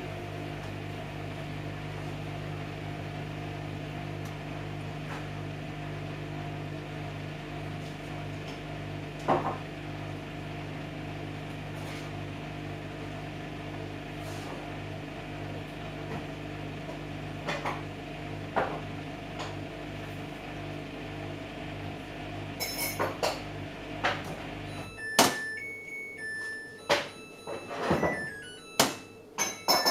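Microwave oven running with a steady electrical hum, with a few clunks and knocks in the kitchen. The hum cuts off suddenly about 25 seconds in and background music takes over.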